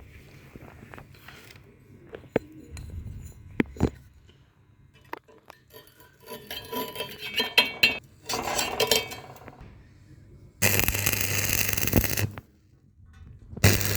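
Metal pieces clinking and scraping, then an electric welding arc struck twice: a loud even hiss with a steady low hum, the first lasting about a second and a half, the second starting near the end.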